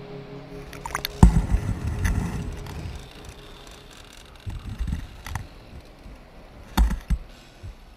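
A fast stream heard through a partly submerged waterproof camera: muffled rushing and gurgling water with low thumps and sharp knocks as the current and the rocks buffet the camera. Music fades out about a second in.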